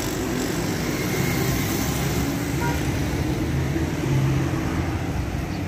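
Steady street traffic noise: a continuous hum of vehicle engines and road noise.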